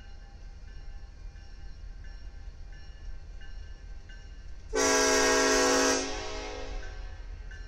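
Union Pacific diesel locomotive's air horn sounding one loud blast of just over a second, nearly five seconds in, as a warning while approaching the grade crossing. Under it runs the low steady rumble of the approaching train.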